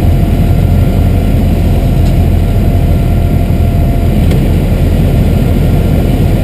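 Piper Warrior II's four-cylinder Lycoming engine and propeller running steadily, heard as a loud, even drone inside the small plane's cabin.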